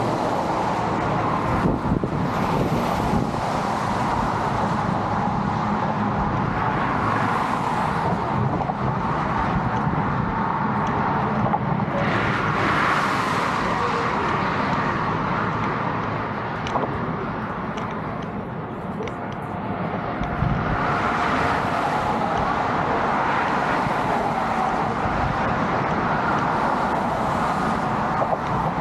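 Road traffic, cars and tyre noise swelling and fading as vehicles pass, easing off briefly past the middle.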